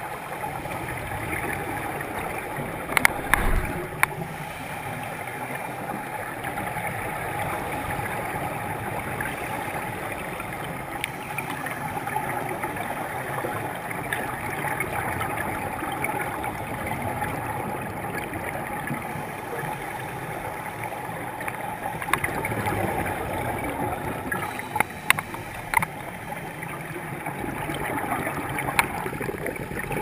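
Muffled underwater ambience picked up through a diving camera's waterproof housing: a steady hiss with a handful of sharp clicks, a short cluster about three seconds in and several more in the last third.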